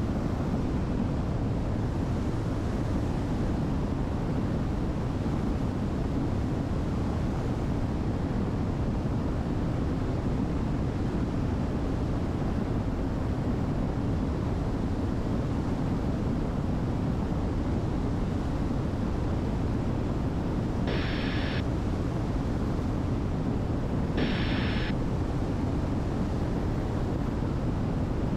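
Steady cabin drone of a Diamond DA62's twin Austro AE330 turbo-diesel engines in cruise flight. Near the end there are two short bursts of hiss about three seconds apart.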